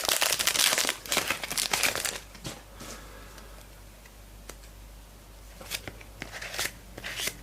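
Foil wrapper of a Select Footy Stars trading card pack being torn open and crinkled, densest for the first two seconds, then quieter scattered crinkles with a few sharper crackles near the end.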